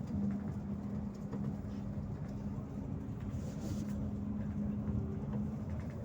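Volgabus-5270.G2 city bus running on compressed natural gas, heard from inside the passenger cabin while under way: a steady engine drone with low road rumble.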